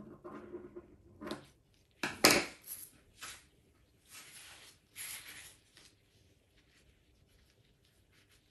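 Folded metallic edible paper crinkling and rustling as it is handled, with a sharp clatter about two seconds in as a pair of kitchen scissors is set down on the table, then a few more short spells of crinkling.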